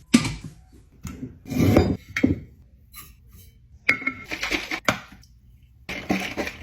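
Clinking and clattering of things being handled in a kitchen, in several short separate bursts with quiet gaps between.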